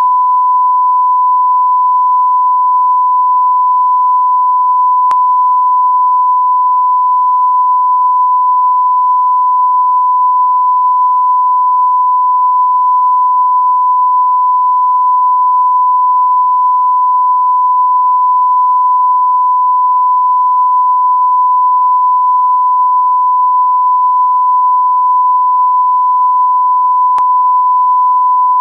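Steady 1 kHz reference tone, the broadcast line-up tone that accompanies colour bars: one unbroken, loud, pure beep at a constant pitch. There is a faint click about five seconds in and another near the end.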